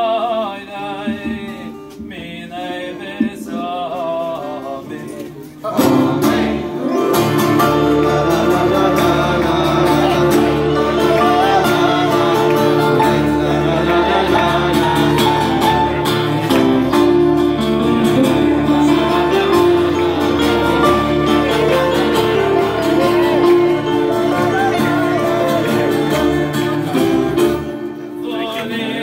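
Live band music: men singing to a Korg keyboard and an acoustic guitar. For about the first six seconds the voices sing with little behind them, then the full band comes in louder and keeps going, easing back near the end.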